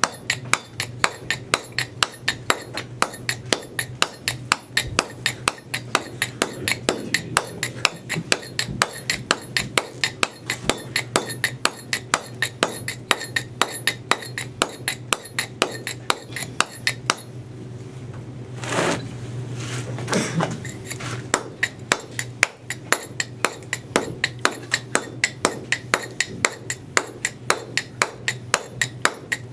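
Mallet driving a stonemason's boaster (wide chisel) across a stone chamfer: a steady run of sharp strikes, about three a second, each with a bright metallic ring from the chisel. About two-thirds of the way through the striking stops for a few seconds, with a couple of other knocks, then resumes.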